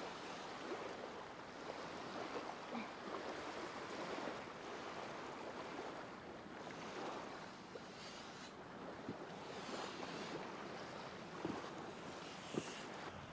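Steady hiss of wind and small waves at the shore, with intermittent scratching of a wooden stick dragged through the sand and a couple of light ticks near the end.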